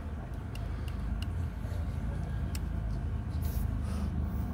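Steady low rumble, with a few light clicks as a folding multitool is picked up and handled.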